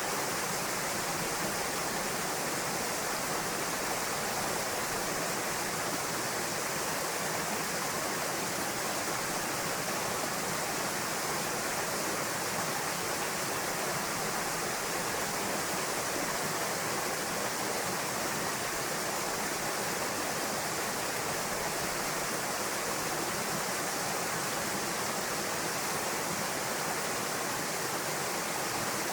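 Waterfall pouring into a pool: a steady, even rush of falling water with no breaks or changes.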